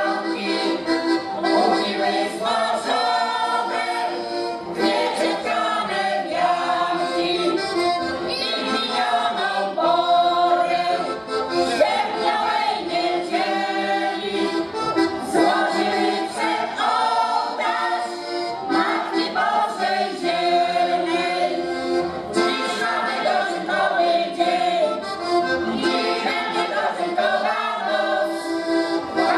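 A folk choir of mostly women's voices singing together, with an accordion playing along.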